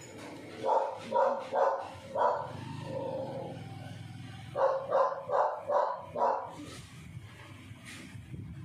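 A dog barking in quick runs: four barks about a second in, then five more in a row from about four and a half seconds in.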